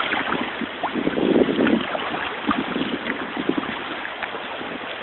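Wind buffeting the microphone over sloshing shallow floodwater, with a few irregular splashes or knocks.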